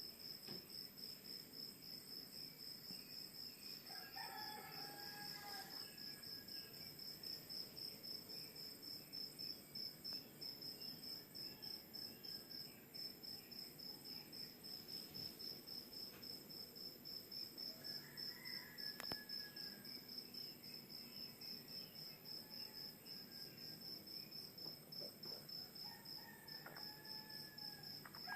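Crickets chirping in a steady, fast pulse, with a rooster crowing three times: about four seconds in, midway, and near the end. Underneath is a low, steady rush of ocean surf.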